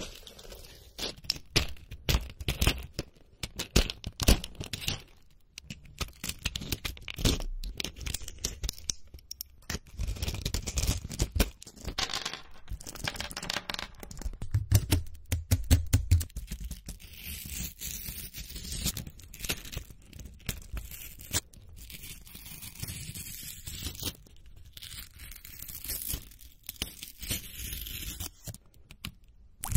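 Pills being popped out of plastic blister packs, the foil backing tearing and the plastic crackling in a dense, irregular run of clicks and crackles.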